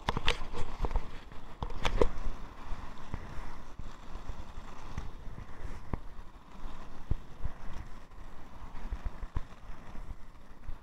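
Inline skate wheels rolling fast downhill on an asphalt path, a steady rolling rush with scattered single clicks and a burst of clattering knocks in the first two seconds.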